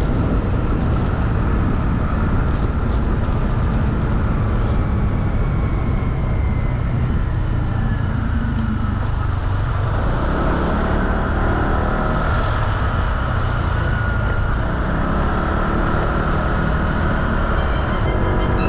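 Motorcycle engine running while riding, under steady road and wind noise.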